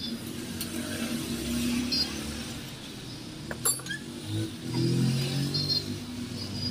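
Metal-on-metal clinks and scraping from a car's front shock absorber being worked in a steel bench vise, its rod turned with a cranked bar, with one sharp clink about three and a half seconds in. A low steady rumble runs underneath.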